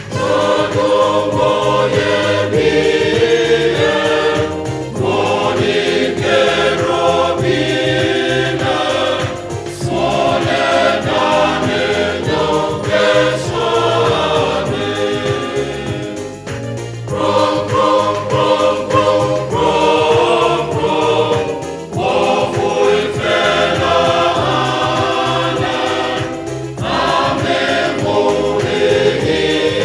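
Choir singing a Ga-language Presbyterian hymn, line by line with short pauses between phrases, over a low accompaniment.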